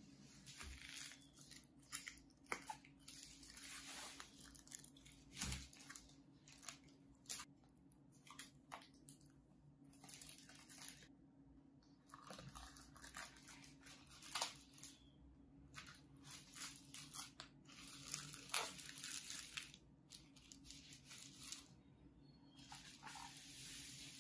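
Faint crinkling and rustling of bubble wrap and plastic wrapping under hands, with scattered sharp crackles and taps as a cardboard laptop box is turned and shifted on it.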